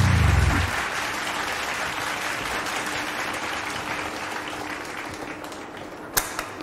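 Applause that slowly fades, after music cuts off just under a second in; a single sharp click near the end.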